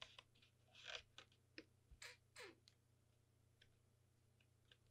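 Near silence with a few faint clicks and short rubbing sounds from hands squeezing a small adhesive bottle and pressing the corners of a fluorosilicone patch onto a PVC pipe.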